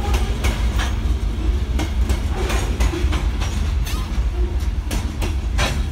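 Covered hopper cars of a freight train rolling past, their wheels clicking irregularly over the rail joints over a steady low rumble.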